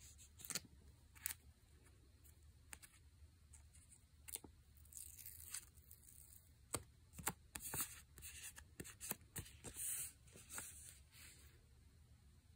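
Faint handling of paper die-cut stickers and their clear plastic packets: scattered light taps and clicks with short bursts of rustling and crinkling, including a sticker being peeled from its backing. The handling stops near the end.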